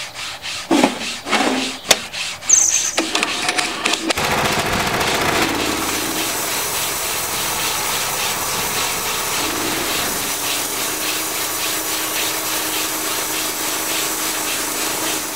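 Band sawmill cutting wood: a steady rasping saw noise with an even pulse, after a few sharp knocks and squeaks in the first few seconds. It cuts off abruptly at the very end.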